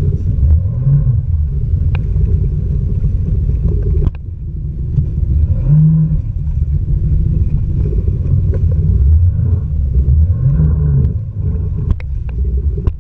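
Wind buffeting an action camera's microphone at sea: a loud, uneven low rumble, with a few light clicks.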